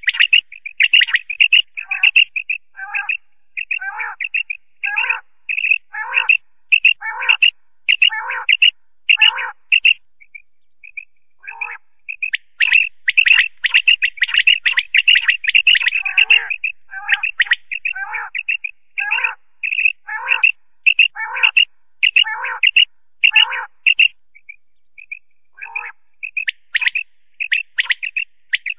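Common quail calling: a short, high call repeated about once a second, with a dense run of rapid calls about halfway through and brief pauses between the series.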